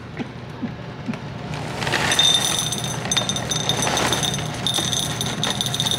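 Dry Cheerios cereal being poured, rattling into a bowl, starting about two seconds in and carrying on steadily.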